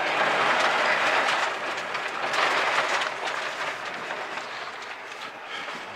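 Rally car's tyres running over a wet gravel road, heard from inside the cabin as a steady rushing hiss with stones rattling against the underbody, growing quieter in the second half.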